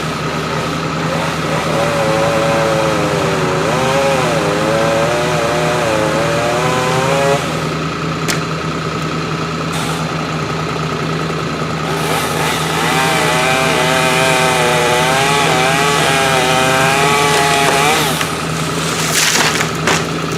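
Stihl chainsaw cutting through wood in two long cuts, its engine note wavering as it bogs and recovers under load, over the steady hum of a diesel engine idling. A short clatter comes near the end.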